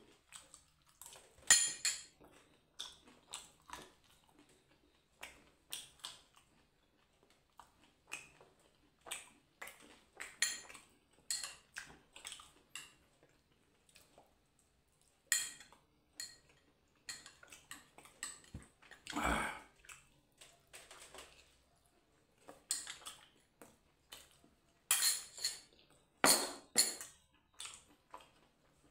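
Metal spoon clinking and scraping against a small ceramic bowl as chutney is scooped out and tasted, in short irregular clicks. There is a louder knock about two-thirds of the way through and a quicker run of clinks near the end.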